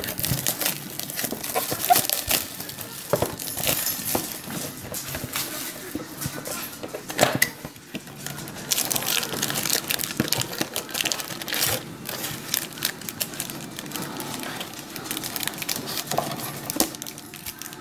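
Cardboard trading-card box being opened by hand and foil-wrapped card packs crinkling and rustling as they are lifted out, with scattered small clicks and scrapes.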